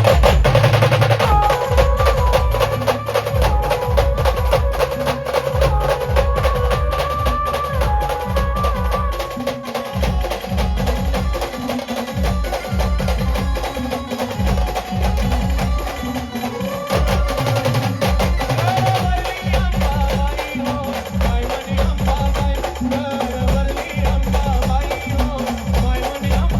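Band music: an instrumental passage with a fast, steady drum beat under a melody line.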